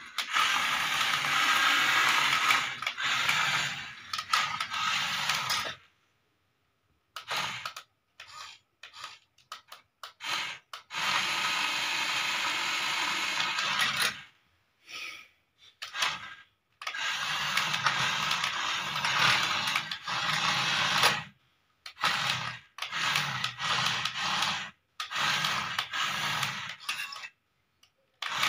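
Small geared electric motor of a battery-powered toy JCB excavator whirring as it drives across a tile floor, running for several seconds at a time with short stops in between.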